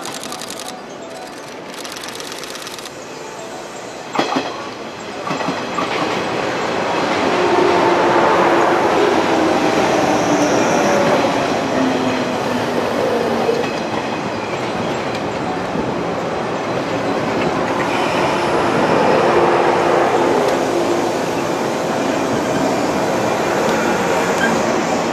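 JR West 103 series electric train rolling past close by, with wheels clattering over the rail joints and a whine that falls in pitch. A sharp knock comes about four seconds in, and the running noise swells to its loudest as the cars pass.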